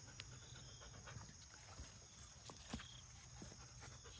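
Quiet outdoor ambience: a steady high-pitched insect drone, with a few faint rustles and snaps of leafy undergrowth.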